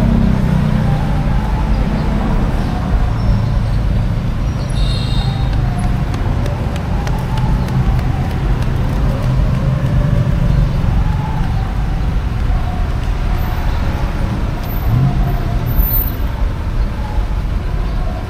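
Steady rumble of road traffic, with voices faintly mixed in.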